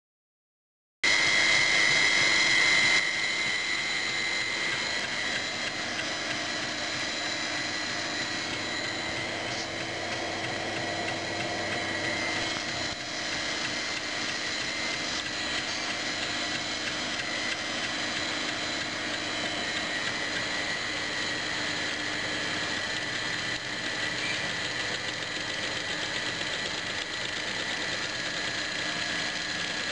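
Homemade belt-driven generator rig running steadily: a continuous mechanical hum with a high steady whine. It starts suddenly about a second in and is loudest for the first couple of seconds.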